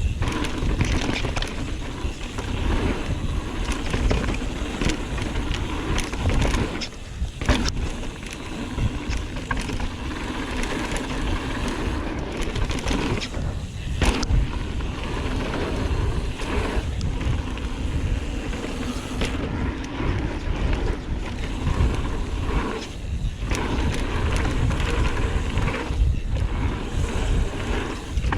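Mountain bike rolling fast down a dirt trail: steady wind buffeting on the microphone and tyre rumble, with a few sharp knocks over bumps.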